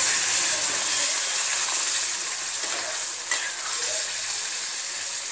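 Stuffed gourds in a spiced oil-and-masala gravy sizzling in a kadhai with a little added water, while a steel spatula stirs them. The sizzling eases slightly, and there is a single knock about three seconds in.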